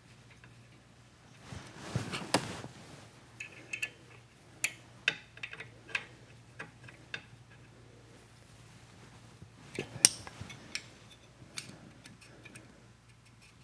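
Small metal hand tools clicking and clinking on a motorcycle engine's valve gear as the tappets are set: scattered light taps, with a louder clatter and scrape about two seconds in and another clatter about ten seconds in.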